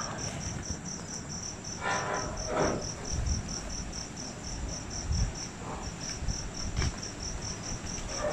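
A cricket chirping in a steady, even rhythm of about three high chirps a second, over a low background rumble with a few soft low thumps.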